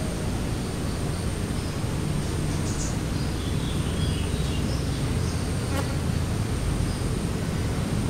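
Outdoor ambience: a steady low background rumble with a constant thin high whine over it. Scattered faint, short high chirps come in the middle, and there is one sharp click a little before six seconds.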